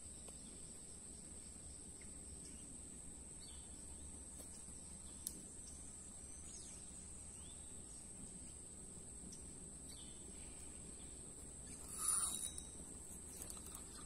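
Insects buzzing in one steady, high-pitched drone, with a few faint short bird chirps. Near the end there is a brief louder rustle.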